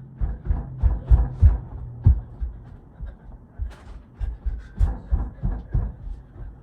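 Running footsteps: a regular train of dull low thuds, about three a second, as the recording device is carried along at a run.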